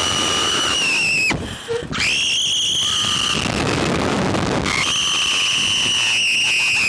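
Two riders screaming on a Slingshot reverse-bungee ride. There are three long, high, held screams, each broken off by a short pause for breath, one after about a second and one around the middle.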